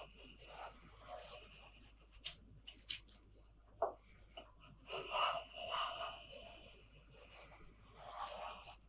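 A Kakuri replacement-blade hobby plane, a small metal-bodied trimming plane, taking shavings off the edge of a wooden strip. Short cutting strokes come in a pair about five seconds in and once more near the end, with a few light clicks earlier on.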